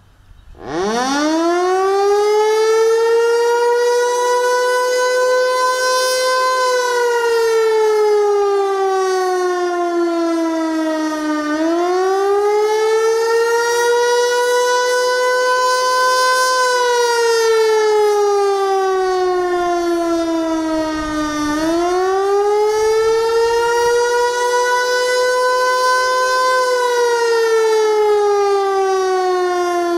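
Federal Signal Eclipse 8 electronic outdoor warning siren sounding the attack signal. It starts about half a second in, and its pitch climbs for about five to six seconds, then falls for about five, in a slow repeating wail that goes round nearly three times.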